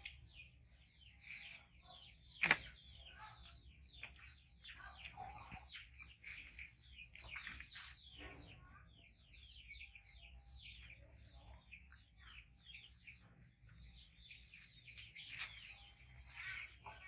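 Faint, busy chirping of small birds: many short, falling chirps in quick succession, with a single sharp knock about two and a half seconds in.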